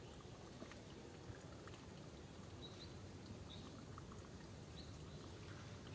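Faint outdoor ambience: a steady low background hiss and rumble, with three short, high chirps in the middle and a few tiny clicks.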